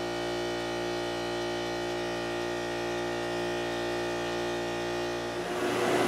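CNC mill spindle turning a face mill through a cut under flood coolant: a steady whine of several even tones. About five seconds in it gives way to a steady broad hiss.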